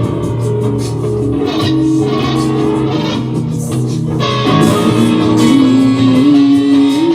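Instrumental music led by guitar, with a steady bass line under sustained notes that shift pitch every second or so.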